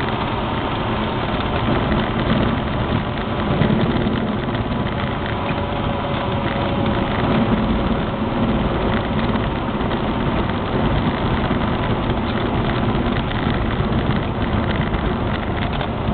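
Cessna 172's engine running with the steady rush of the airframe and wheels, heard from inside the cockpit as the plane rolls out along the runway after landing.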